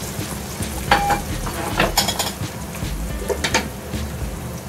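Minced meat, peppers and eggs sizzling steadily in an uncovered frying pan, with a few sharp clinks of kitchenware about a second in, around two seconds and again near three and a half seconds.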